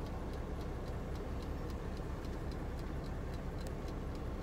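Small countertop oven's clockwork timer ticking evenly, a few ticks a second, while the oven is on. A steady low hum runs underneath.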